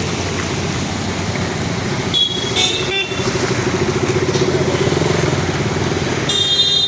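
Street traffic: a motorcycle engine passing, growing louder through the middle, with a few short high horn toots, the longest near the end.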